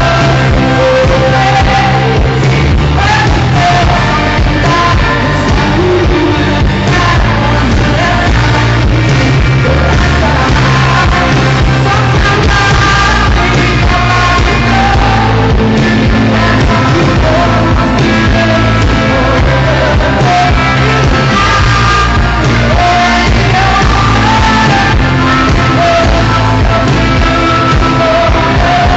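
A live pop ballad: a woman singing lead over a full backing band, recorded loud from the audience in a concert hall.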